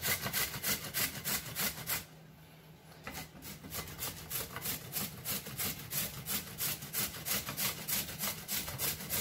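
A carrot being grated on a flat hand grater: quick rasping strokes, about four a second, pausing for about a second roughly two seconds in.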